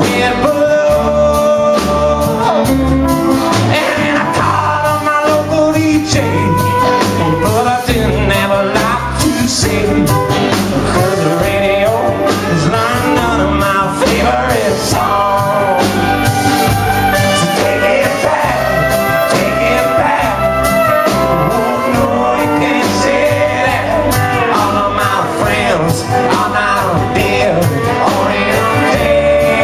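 A country band playing live, with singing over acoustic guitar, electric bass, fiddle and drums, and a steady beat throughout.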